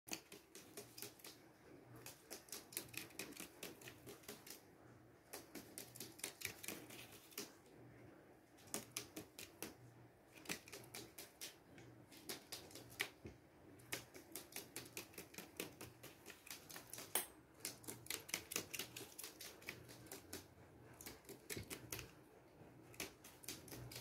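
A rainbow lorikeet's claws tapping on a plastic-covered tabletop as it hops and bounces around. The clicks come in quick, faint runs of several taps a second, broken by short pauses.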